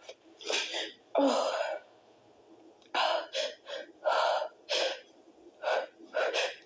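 A woman's short, sharp gasping breaths, about eight in a row with brief pauses between them, as a sneeze builds that she is trying to hold back.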